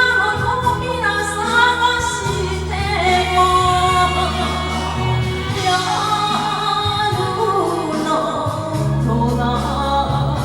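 A woman singing a song over a karaoke backing track, her voice holding long notes above a steady bass line.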